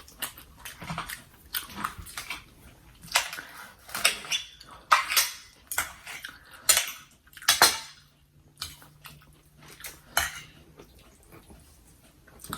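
Eating sounds: a fork or spoon clicking and scraping on a plate, with crisp crunching bites of fresh lumpia stuffed with julienned jicama and other raw-crunchy vegetables, coming irregularly every half second to second.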